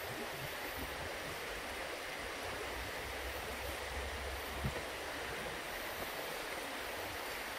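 Steady rushing of a creek flowing over rocks, with one light knock a little past halfway.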